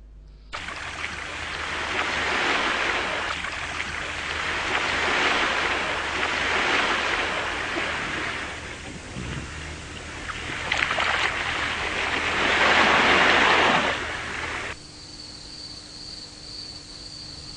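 A rushing, wind-like noise that swells and fades several times. About fifteen seconds in it cuts off to a quieter background with a steady high-pitched, insect-like tone.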